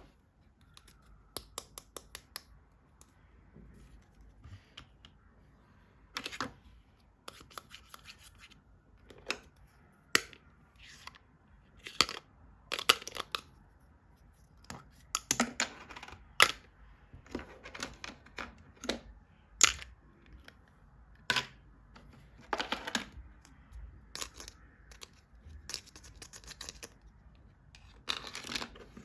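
Plastic toys and their packaging being handled and unwrapped: irregular sharp clicks and taps with short scratchy rustles and tearing.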